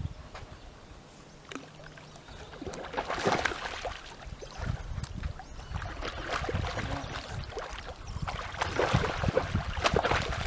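A hooked carp splashing and thrashing in the shallow water at the river's edge as it is brought to the bank, in uneven splashes that grow heaviest near the end.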